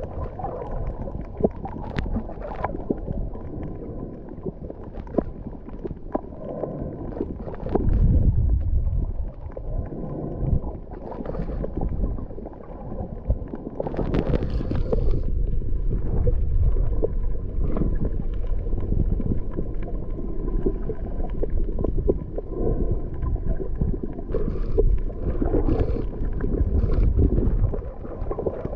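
Underwater sound picked up by an action camera's waterproof housing while snorkeling: a muffled, low rumbling water noise with scattered clicks and crackles and a faint steady hum. A brief brighter splash of noise comes about halfway through.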